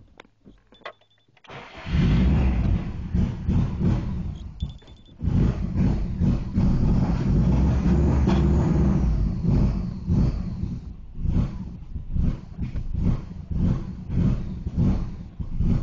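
2002 Subaru WRX engine: quiet with a short high beep for the first second or so, then the engine starts about two seconds in and runs, drops away briefly about four and a half seconds in, and picks up again. In the second half it runs with an uneven, pulsing rhythm, which the owner suspects comes from a vacuum leak.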